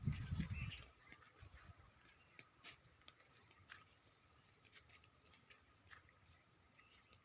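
Faint, scattered short bird chirps over a quiet outdoor background, with a brief low rumble in the first second.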